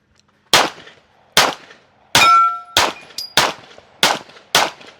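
Glock pistol fired in a timed string: seven shots at an even pace of a little under two a second, with a metallic ring hanging on after the third shot.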